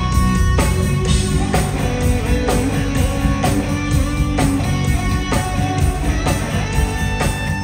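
Live instrumental rock: a lead electric guitar plays sustained, singing melody notes over bass and a drum kit keeping a steady beat.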